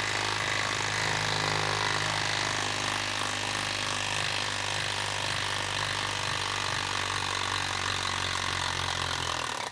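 Milwaukee M12 Stubby 1/2-inch cordless impact wrench hammering steadily as it backs a lag screw out of wood, running on a 2 Ah battery. It stops abruptly at the very end.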